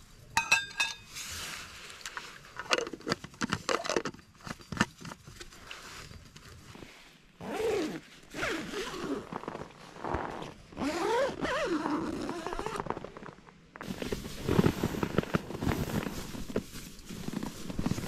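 Camping gear being handled at close range: rustling, scattered knocks and short scraping sounds, changing abruptly to denser, lower handling noise near the end.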